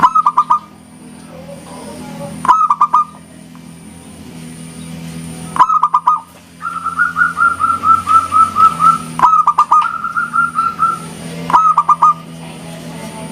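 Zebra dove (perkutut) cooing: short phrases of three or four quick notes repeated every few seconds, with a long run of rapid even notes in the middle. A faint steady hum lies underneath.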